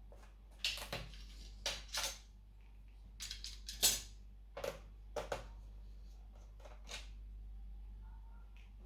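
Irregular clicks, taps and short scrapes of hand tools and small plastic and metal laptop parts being handled during disassembly, the loudest click about four seconds in, over a low steady hum.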